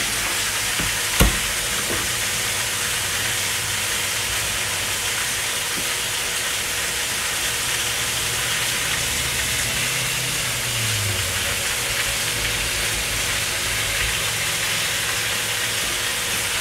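Potatoes, onion and celery sizzling steadily in hot bacon grease, with a single sharp knock about a second in.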